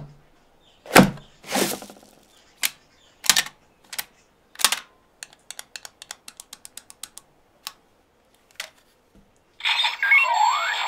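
Bandai DX Volcano Vistamp toy handled: plastic clicks and knocks, then a quick even run of small clicks, about seven a second, as its parts and activation button are worked. Near the end the toy's electronic sound effects start, with sweeping tones.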